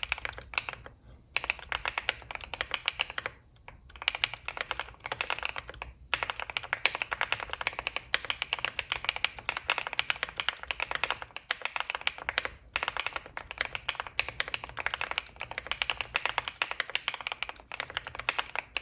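Mechanical keyboard being typed on quickly, a dense run of key clacks broken by short pauses about a second in, near three and a half seconds, at six seconds and near twelve and a half seconds.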